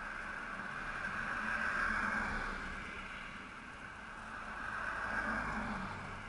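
Road traffic: cars passing on the road, a steady tyre-and-engine rush that swells about two seconds in and again near five seconds.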